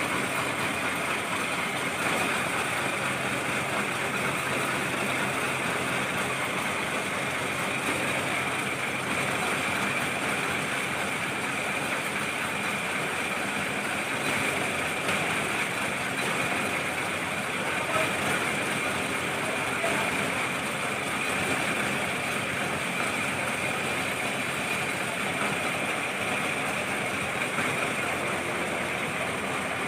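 Charcoal briquette production machinery, the extruder and belt conveyor, running steadily with an even mechanical noise and a constant high whine.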